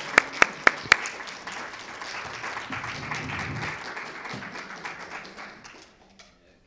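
A small audience applauding. One pair of hands claps loudly and close by, about four claps a second, over the first second, then the applause thins out and dies away about six seconds in.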